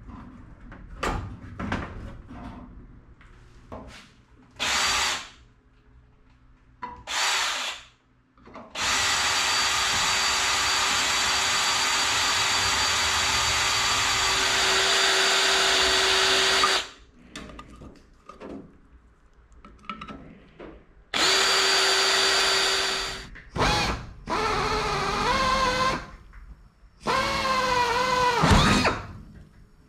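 Pneumatic drills drilling holes through aluminium aircraft sheet and brackets: a right-angle air drill and a pistol-grip air drill. A couple of short bursts come first, then a steady run of about eight seconds with a constant whine, a shorter run, and a last run whose pitch wavers as the bit loads up.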